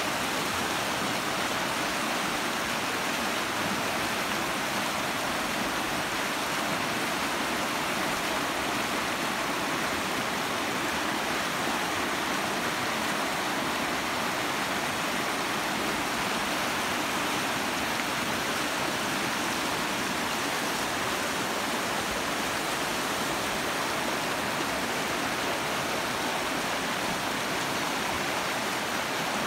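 Swift river rushing and churning over a stony bed: a steady, even rush of white water.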